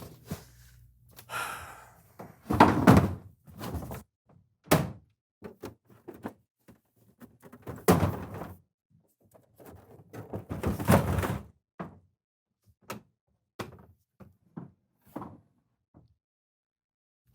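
Irregular knocks and thumps, with louder, longer bangs about three, eight and eleven seconds in.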